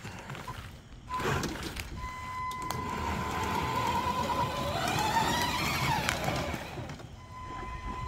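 Electric drive motors of a remote-control beach fishing cart whining as it drives, starting about a second in. A steady high whine is joined by a second tone that rises in pitch as the cart speeds up, over the rolling noise of its wheels on concrete.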